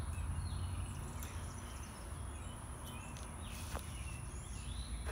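Quiet outdoor ambience: a steady high-pitched whine and a low rumble, with a few faint short chirps.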